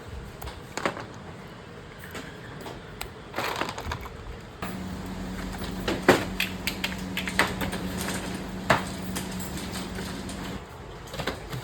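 Factory work noise: irregular sharp knocks and clatters of objects being handled, with a steady machine hum that starts about a third of the way in and cuts off near the end.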